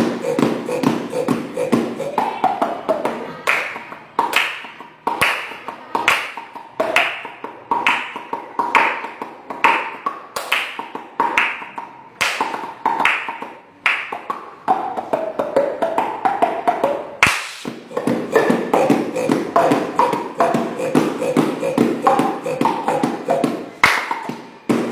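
A child beatboxing with the mouth: sharp clicks and pops in a steady beat, over a hummed tone.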